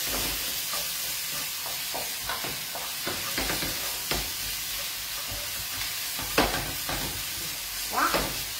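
Wild broccoli sizzling in hot oil in a frying pan as it is stirred, with a steady hiss and scattered knocks and scrapes against the pan. The sharpest knock comes about six and a half seconds in.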